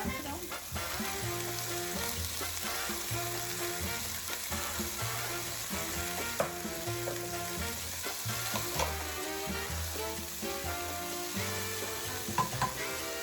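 Chopped onions sizzling in hot olive oil in a pan, with a few sharp clicks of a utensil against the pan as they are stirred. Background music plays underneath.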